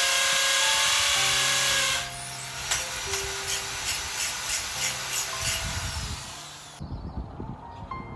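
Corded power drill running at full speed, drilling overhead into the top of an aluminum screen-enclosure post, then stopping about two seconds in. Background music with a steady beat plays underneath throughout.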